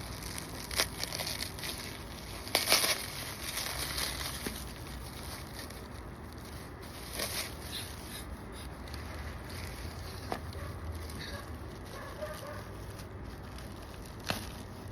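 Packaging being handled as a taped-up parts box is unpacked: rustling and crinkling with scattered sharp knocks, the loudest about two and a half seconds in.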